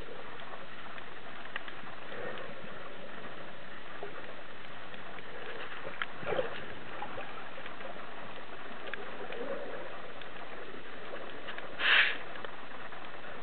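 Underwater ambient noise picked up through a camera housing: a steady hiss with scattered faint clicks, and one brief louder rush of noise near the end.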